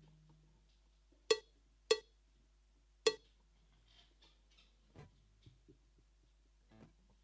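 Finhol Stompcon stomp box struck three times, about a second in, half a second later and a second after that. Each is a sharp percussive hit with a short pitched ring. They are followed by several fainter taps and knocks.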